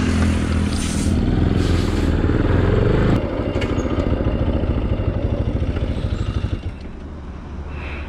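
Motorcycle engine running as the bike rides along the road. About three seconds in the engine eases off into a slower, pulsing beat, and it grows quieter near the end.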